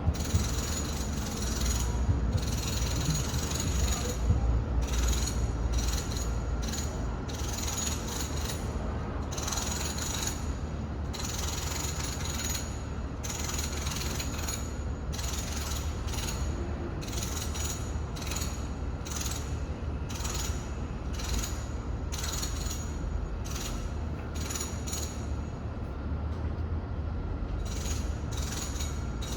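Distant building renovation noise heard inside a home: a steady low rumble with irregular bursts of mechanical rattling, coming thick in some stretches and spaced out in others.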